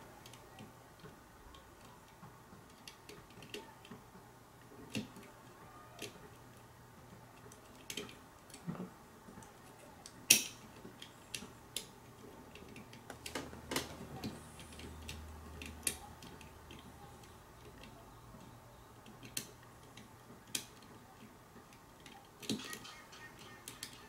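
Small irregular metal clicks and ticks from a pick working the levers of a five-lever lock, with a few sharper clicks midway.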